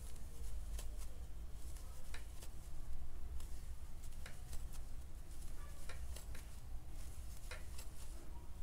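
Faint, irregular ticks and rustles of a crochet hook being worked through acrylic yarn, over a steady low hum.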